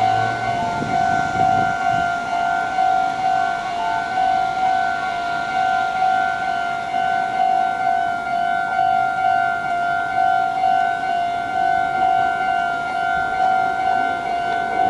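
Japanese level-crossing warning bell ringing in a steady, even rhythm of two-tone electronic dings, warning that a train is approaching.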